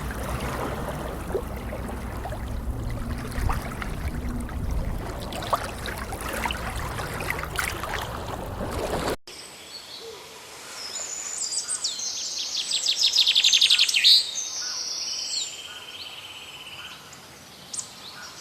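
Rumbling background noise with scattered clicks. After a sudden cut, a songbird sings a fast trill of repeated high notes that grows louder, then a few shorter chirps.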